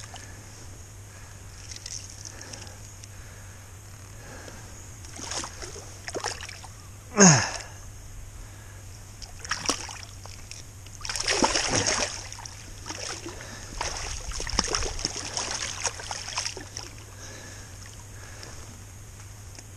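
River water splashing in irregular bursts over the steady rush of the current. The loudest splash comes about seven seconds in and a longer run of splashing about eleven to twelve seconds in.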